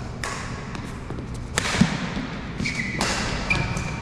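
Badminton doubles rally: sharp racket strikes on the shuttlecock and thudding footfalls on the court, the heaviest thud about two seconds in. Short shoe squeaks on the court floor come near the end.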